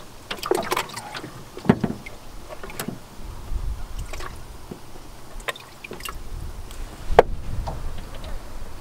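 Scattered knocks and clicks of a minnow bucket and fishing gear being handled in a metal jon boat, the sharpest knock about seven seconds in, over a low rumble.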